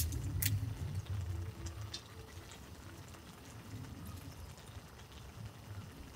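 A few sharp clicks as the plastic bottle's cap comes off, then water poured from the plastic bottle into a metal camping mug, over a low steady simmer from the pan on the gas burner.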